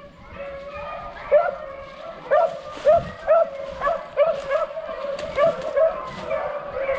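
Beagles baying on a rabbit's trail: a string of short, ringing cries, about two a second, over a long, held howl.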